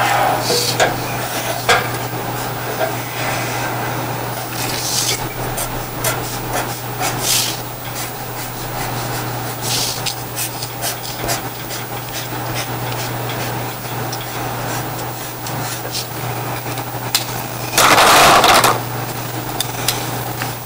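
Felt-tip markers scratching across paper, with scattered taps and clicks of pen handling, over a steady low hum. Near the end comes a short, loud burst of rustling noise.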